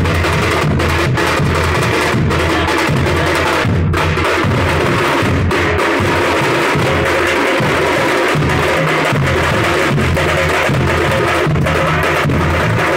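Loud, continuous drumming with deep bass-drum strokes under a fast rolling beat, typical of the drum ensembles that play for a taziya procession's stick-fighting display.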